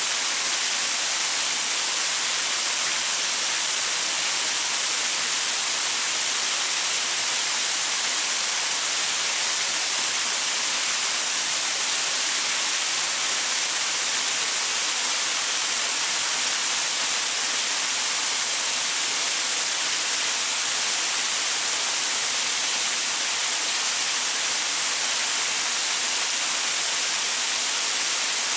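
Waterfall pouring over rocks: a steady, even hiss of falling and splashing water, weighted toward the high end, with little low rumble.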